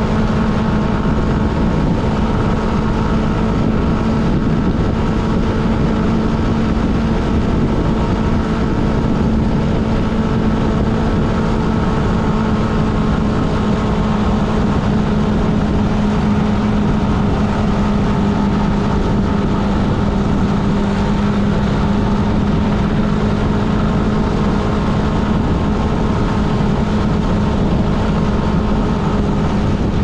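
A vehicle on the road at a steady speed: an engine hum that holds one pitch over a constant rush of tyre and wind noise.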